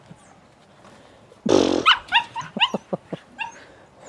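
Border collies squabbling: one loud, harsh bark about a second and a half in, followed by a quick run of short, high-pitched yips from an 8-week-old border collie puppy telling off an older dog.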